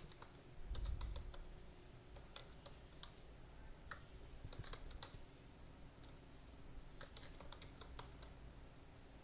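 Computer keyboard typing: faint, irregular keystrokes in short runs with pauses between.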